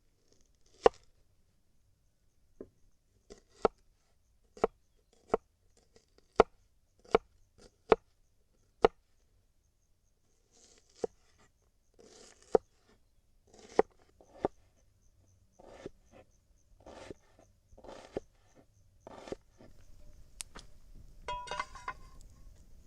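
Knife chopping ingredients on a cutting board. First come single sharp chops about a second apart, then from about halfway softer, longer strokes, and near the end a brief, denser rattle.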